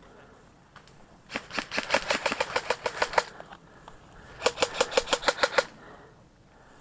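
Airsoft gun firing two full-auto bursts of rapid cracks, about ten shots a second: one of about two seconds starting a little over a second in, then a shorter one of about a second.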